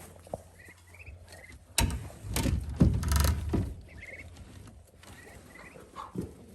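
Ducklings peeping softly in short chirps. About two seconds in, a loud scuffling noise lasts a couple of seconds.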